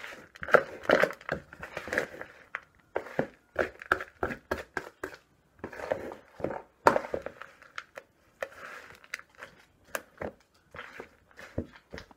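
Hands mixing raw ground beef with rice and seasonings in a plastic bowl: irregular short squishing noises with small clicks.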